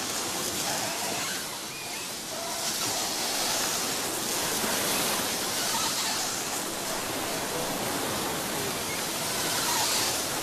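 Steady rushing noise of sea wind and breaking surf on a beach, swelling a little now and then.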